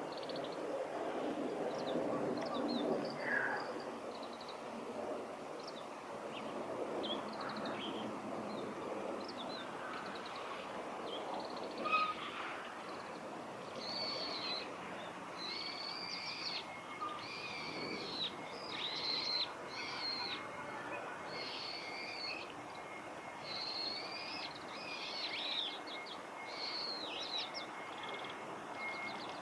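Oriental greenfinch singing: short twittering, trilled phrases repeated over and over, coming much more often in the second half, with a long held note running under them. A low steady background noise sits beneath, strongest in the first few seconds.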